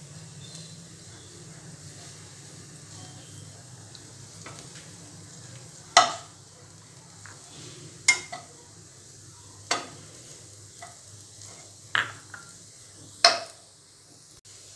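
Spinach noodles and chilies stir-frying in a wok with a faint steady sizzle, stirred with a metal spatula. Five sharp clacks of the spatula against the pan come in the second half.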